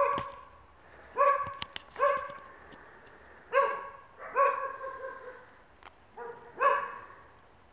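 A dog barking, about seven short barks at uneven intervals, one drawn out longer near the middle.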